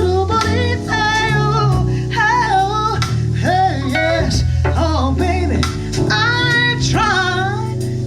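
A woman singing with a backing band, holding wavering notes and sliding through quick vocal runs over steady bass notes.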